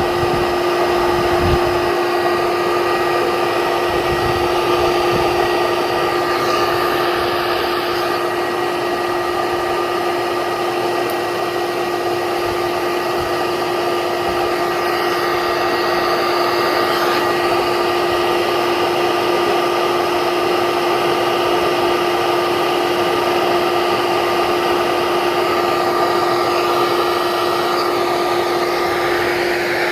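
Electric vacuum running steadily through the whole stretch, a constant hum with a higher whine over a rushing hiss, as used to suck bees out of a hive.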